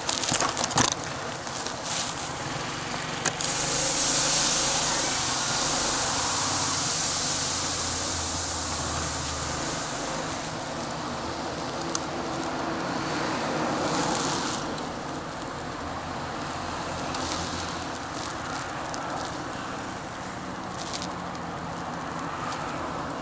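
Motorcycle engine running as the bike rolls out of a fuel station and waits at the roadside, with road traffic passing. The traffic noise swells about four seconds in and again around the middle.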